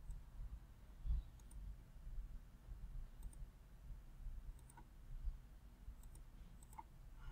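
Faint computer mouse clicks, about half a dozen spread over several seconds, over a low rumble, with one dull low thump about a second in.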